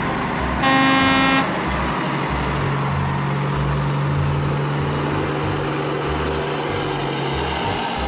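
Heavy construction-vehicle engines running steadily as a convoy drives along, with a throbbing low rumble. A single horn honk lasts just under a second, about a second in.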